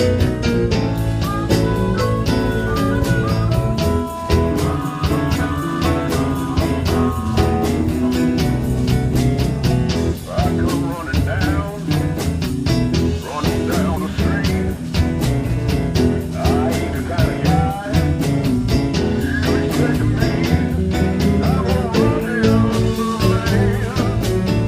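Live band playing a slow blues in E: guitar over bass and drums keeping a steady beat, with wavering lead notes from about ten seconds in.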